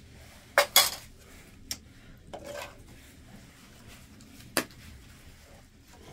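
Metal spoon clinking and scraping against an aluminium pot and a china plate as food is dished out: two quick clinks about half a second in, a lighter tap, a short scrape, then one more clink near the end.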